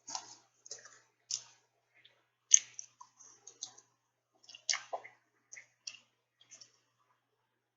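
A person chewing a jumbo hot dog close to the microphone: irregular wet smacks and clicks of the mouth, the loudest about two and a half seconds in.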